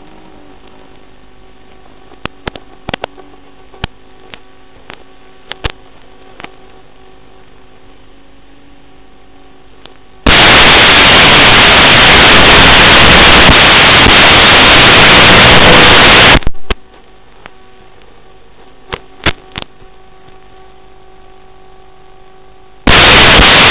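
Audio of an analog FPV video link: a steady electrical hum with scattered crackles, broken about ten seconds in by loud hissing static for about six seconds as the video signal drops out, and loud static again near the end.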